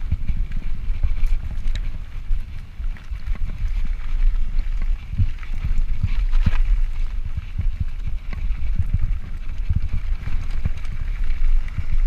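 2017 Yeti SB5 full-suspension mountain bike riding down rocky dirt singletrack: a constant rumble of tyres on dirt and stones, with irregular knocks and rattles of the bike jolting over bumps.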